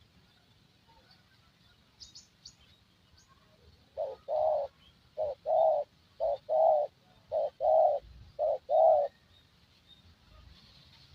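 Spotted dove (tekukur) cooing: five calls in a row about a second apart, each a short note followed by a longer one, starting about four seconds in. A few faint high chirps come just before.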